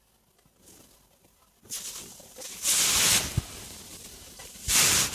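Stomach gurgling and rumbling while digesting a meal. It starts after a quiet second and a half, with two louder hiss-like surges about two seconds apart.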